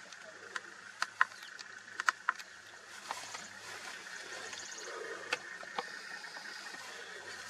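Quiet open-air grassland ambience, a steady hiss over a faint low hum, broken by a handful of sharp clicks and ticks, the loudest about a second and two seconds in.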